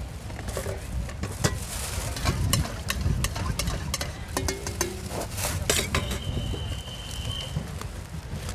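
Spoon stirring and clinking in a bowl as a Thai spicy salad (yum) is tossed, with scattered sharp clicks of utensils.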